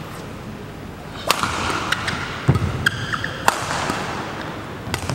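Badminton rally: the shuttlecock is struck by rackets about six times with sharp cracks, the last two in quick succession near the end. Between the hits, court shoes squeak on the floor and a low thud of a landing footstep comes about two and a half seconds in, all echoing in a large hall.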